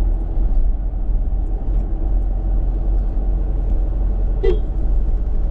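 Car engine and road noise heard from inside the cabin while driving slowly, a steady low rumble. A brief short sound cuts in near the end.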